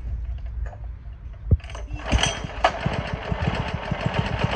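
Ladder hoist's small gas engine being pull-started with the choke on: a knock about one and a half seconds in, then it catches at about two seconds and runs at low throttle with a fast, even beat.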